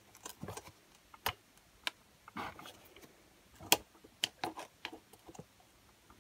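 Irregular light clicks and taps of a small hand tool against the carburettor and fuel pipe of a Stihl BG86 leaf blower as the pipe is worked loose, with a couple of sharper clicks among them.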